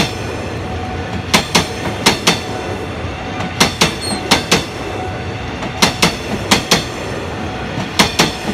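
Passenger train's air-conditioned sleeper coaches rolling past, their wheels clacking over a rail joint. The knocks come in quick double beats as each bogie's wheelsets cross, in groups about every two seconds, over a steady rumble.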